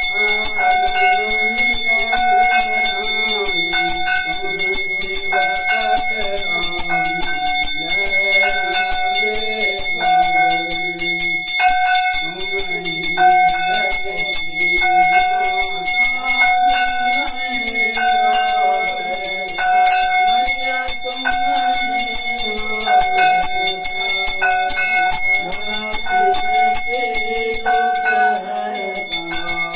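A puja hand bell rung continuously for an aarti, its bright ringing tones holding steady throughout, over devotional music with a moving melody.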